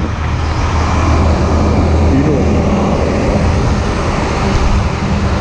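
Diesel engine of a Hino Ranger bulk tanker truck running with a steady low hum as it passes close by, over road and traffic noise.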